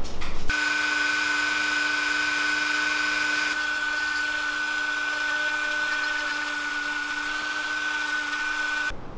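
Dremel rotary tool running at a steady speed with a high whine, cutting a slot for the diving lip into a carved crankbait body. It stops suddenly near the end.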